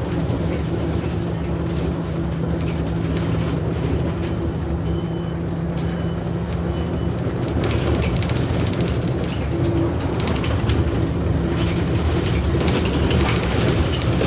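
Bus engine running with a steady drone, heard from inside the moving bus, with rattles growing and the noise getting a little louder from about eight seconds in.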